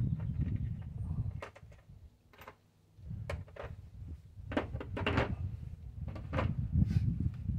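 Handling noise: a string of sharp clicks and knocks over low rumbling, with a pause of about a second near the middle, as parts are handled during work on an outboard motor.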